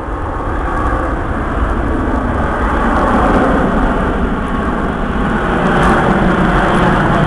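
Airbus A380's four turbofan engines at high power as it climbs away overhead out of a low-speed pass, with power applied for the pullout. A loud, even jet noise that swells over the first second and then holds.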